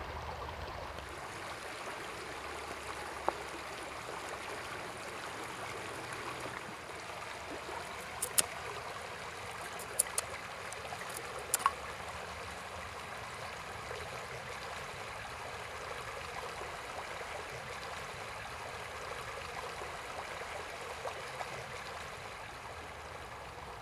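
Shallow stream running steadily, with a few short sharp clicks in the middle.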